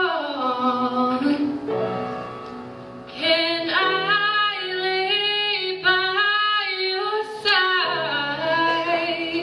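A woman singing a slow ballad into a microphone over upright piano chords. She ends a line on "strong" and, after a short pause, holds long sung notes.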